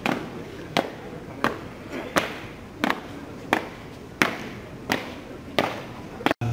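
Marching footsteps of a flag-bearer squad stamping in step on pavement: about ten sharp stamps at an even pace, one every 0.7 seconds or so.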